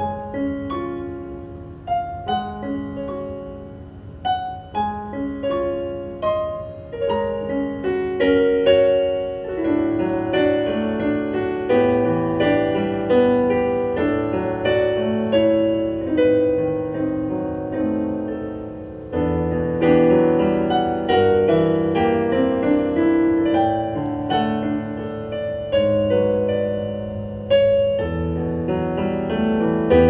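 Kurzweil SP2X digital stage piano playing a piano sound: a steady run of notes and chords, soft at first and growing fuller about eight seconds in, with a louder swell of chords about two-thirds of the way through.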